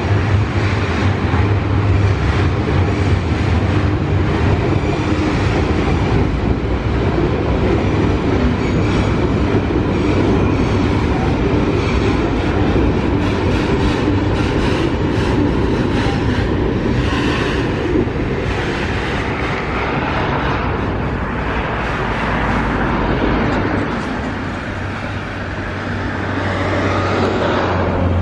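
A loaded freight train rolling past, its wagons making a steady rumble with repeated clicks of wheels on the rails. The low hum underneath stops shortly before the end.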